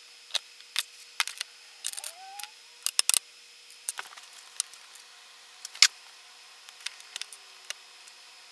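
Irregular small clicks and taps of plastic quadcopter propeller blades and small parts being handled and pressed onto the motor shafts, the sharpest knocks about three and six seconds in. A brief rising squeak, like plastic rubbing, about two seconds in.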